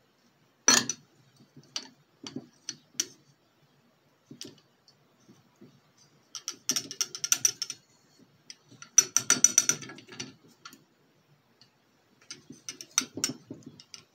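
Rapid ratchet-like clicking and rattling in three runs of about a second each, with single clicks between, as a separatory funnel's stopcock is worked by hand to drain the lower layer.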